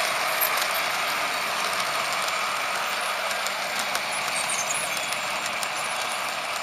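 Märklin HO model train running on the layout: the locomotive's motor and gearing whirr steadily under the rolling noise of wheels on the track, with light scattered clicks.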